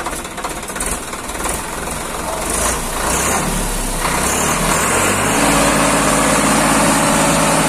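Swaraj 855 FE 4WD tractor's three-cylinder diesel engine being revved up from idle. It grows louder over a few seconds, then holds steady at high RPM.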